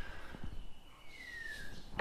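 A bird calling: one short whistled note that falls in pitch, about a second in, over quiet background with a few faint knocks of handling on the bench.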